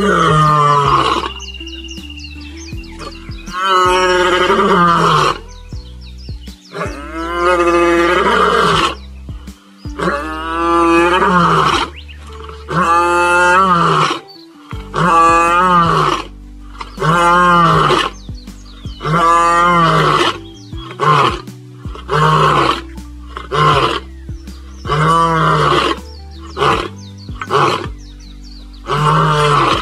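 A wild animal calling loudly, over and over: each call lasts about a second with a wavering, warbling pitch, and they come roughly every two seconds over a steady low musical drone.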